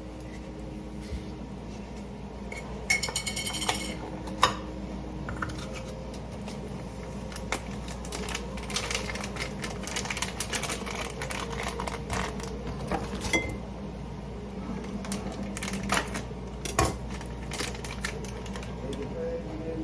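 Cooking sounds: utensils, seasoning containers and cookware clinking and knocking in irregular short clicks, a few of them louder, over a low steady hum.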